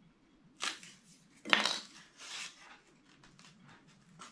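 Foam board model pieces being handled and set down on a cutting mat on a tabletop: a few sharp knocks and clatters, the loudest about a second and a half in, with smaller ticks and scrapes between them.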